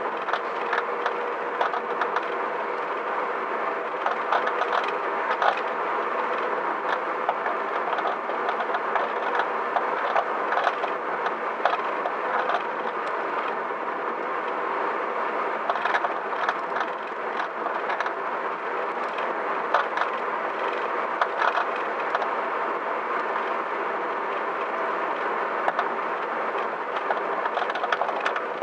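Car on the move with steady road noise and frequent irregular clicks and knocks from aftermarket coilover suspension. The noise appeared once the coilovers were set to their lowest height and did not stop when the car was raised 1 cm.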